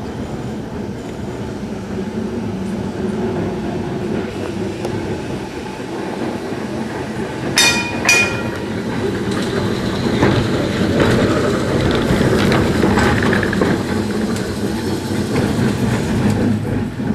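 Double-deck electric tram running along street track past the listener: a steady rumble of wheels and motor that grows louder as it comes alongside. About eight seconds in there are two sharp clangs about half a second apart.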